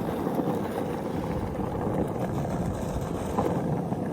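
Skateboard wheels rolling steadily down an icy road, a continuous low rumble.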